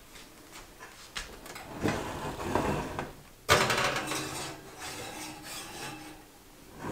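Oven door of an electric range being opened, a glass loaf pan slid onto the wire oven rack and the door shut again: clunks, clatter and scraping of metal and glass, with a sharp clunk about halfway through.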